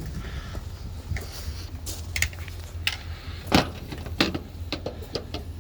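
Scattered metallic clicks and knocks of hex bolts and mounting hardware being handled and fitted into bolt holes, with the loudest knock about three and a half seconds in. A steady low hum sits underneath.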